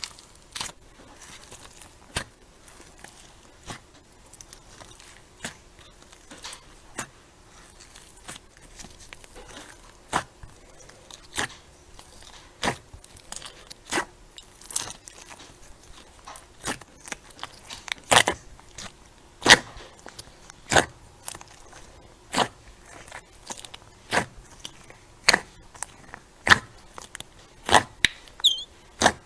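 Crunchy slime being pressed and squeezed, giving short sharp crunches about once or twice a second, louder and closer together in the second half.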